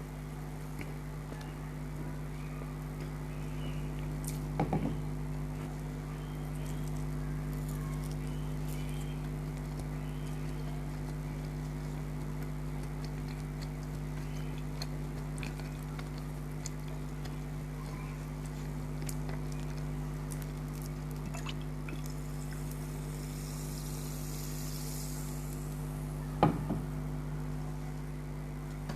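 Close-miked eating sounds: chewing with faint scattered mouth clicks over a steady electrical hum. There is a knock about four seconds in, a few seconds of hiss near the end, and a louder knock right after the hiss.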